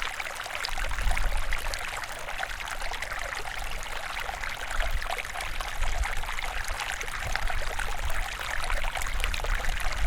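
Water running in a stream, a steady splashing babble full of small rapid gurgles, with a low rumble that comes and goes underneath.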